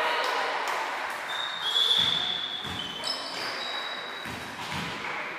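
Sports shoes squeaking on a wooden gym floor, with a volleyball thudding on the floor a few times from about two seconds in, echoing in the hall.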